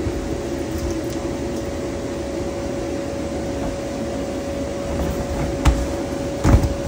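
Steady drone of an inflatable bounce house's electric air blower, with a constant hum tone in it. Near the end come two dull thumps about a second apart.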